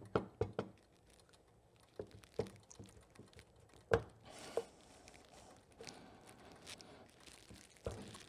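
Cloth shop rag rustling as a motorcycle brake caliper is handled and wiped, with a handful of small, sharp clicks and knocks of metal parts. The loudest knock comes about four seconds in.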